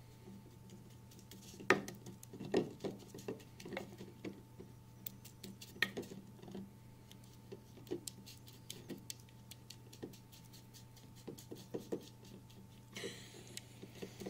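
A paintbrush dabbing and scraping red paint onto the inside of a carved wooden horn bell: light, irregular taps and scratches, with a short scrape near the end. A faint steady hum sits underneath.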